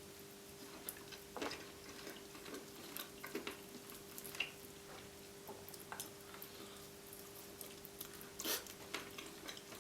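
Close-miked chewing of roast chicken wing: soft, irregular wet smacks and mouth clicks.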